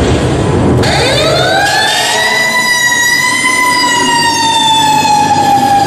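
Fire-engine siren sound effect played loud over the sound system in the dance track. About a second in it winds up steeply to a long, held wail that slowly falls in pitch.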